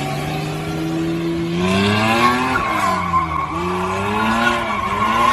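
BMW convertible's engine revving up and down as the car spins donuts, with its tyres squealing. The engine note climbs about two seconds in, drops back, then rises again.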